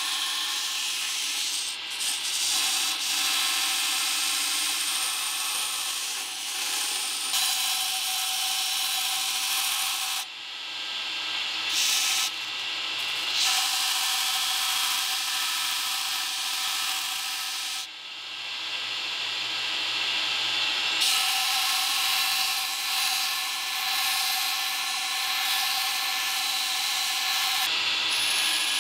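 Belt grinder running, its abrasive belt grinding the edge of a thin Damascus steel knife blank to cut out the blade profile. The motor's steady whine runs under the grinding hiss, and the hiss falls away briefly a few times, around the middle and again near the end.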